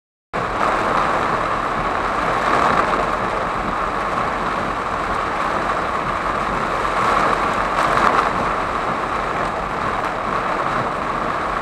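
Heavy rain on a moving car, heard from inside the cabin as a steady loud rush, with tyres running through water on the flooded road. It starts suddenly just after the opening.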